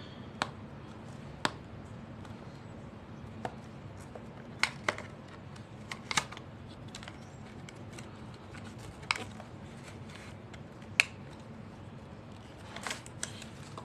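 Cardboard packaging of a phone charger being handled and opened by hand: scattered sharp clicks and taps as the inner tray is slid out of its sleeve and a flap is lifted, over a low steady hum.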